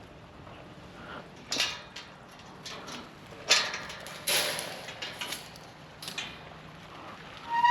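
A series of scrapes and knocks, a few seconds apart, with a short high squeak right at the end.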